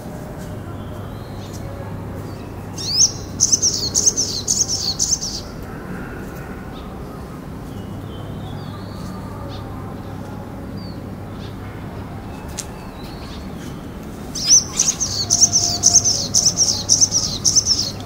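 Male olive-backed sunbird singing: two bursts of rapid, high-pitched twittering notes, each about two to three seconds long, the first a few seconds in and the second near the end.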